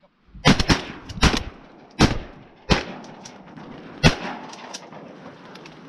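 A volley of shotgun shots fired at ducks: about seven sharp blasts in under four seconds, some in quick pairs, each trailing off briefly.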